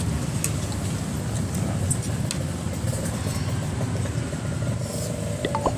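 A steady low engine rumble, with a few faint clinks of spoon and fork against a plate.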